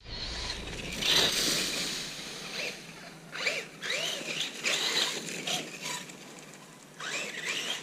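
4S brushless Losi Lasernut RC car's electric motor and drivetrain, fitted with a hardened metal center spur gear, whining in short bursts. The pitch rises and falls with each quick burst of throttle and lift-off.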